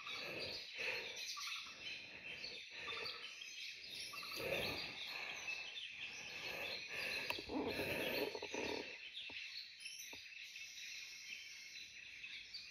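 Forest birds chirping and calling in the trees, with a few bouts of soft rustling.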